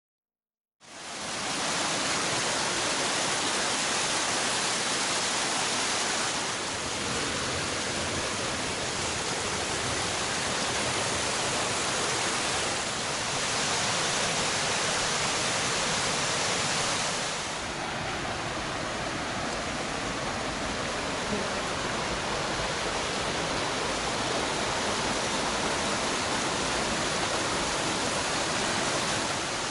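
Steady rush of a mountain waterfall and stream of falling water, starting about a second in, with a few small shifts in tone and level.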